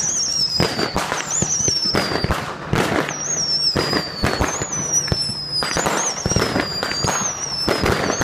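Fireworks going off: a dense, irregular string of bangs and crackles, with a high whistle that slides down in pitch repeating about once a second.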